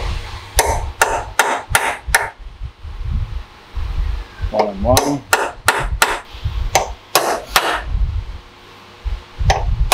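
Hammer striking a steel pin punch against a Nissan GQ Patrol front differential: a series of sharp metallic taps in short runs, about two or three a second, with a couple more near the end. The taps punch alignment marks so the bearing caps and crown wheel go back in the same position.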